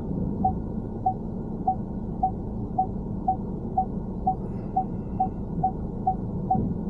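Car turn-signal indicator ticking steadily, about two clicks a second, over low road rumble inside the car's cabin.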